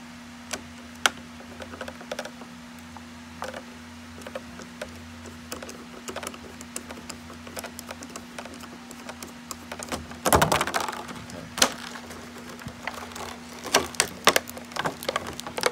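Hands and a screwdriver working a toy RC car loose from its clear plastic clamshell packaging: scattered small clicks and plastic crinkling, a louder burst of rustling about ten seconds in, and a quick run of clicks near the end.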